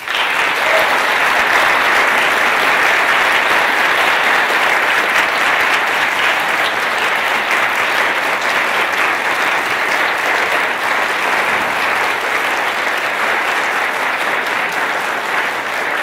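Large audience applauding at the end of a talk: many hands clapping in a dense, even wash that starts suddenly and holds steady throughout.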